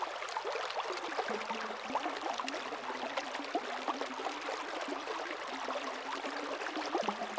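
Shallow mountain creek running over rocks: a steady rush of water with many small bubbling splashes and gurgles.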